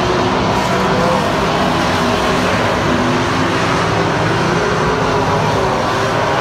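A pack of stock cars racing on a paved oval, several engines running hard at once in a loud, continuous overlapping drone as the field passes.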